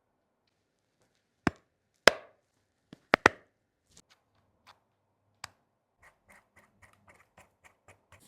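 Sharp taps and clicks of repair tools and phone parts on a hard work surface, the loudest about two seconds in, then a run of light, quick ticks, about four a second, near the end.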